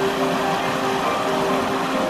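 A small stream rushing over rocks, a steady wash of water, under slow background music of held notes.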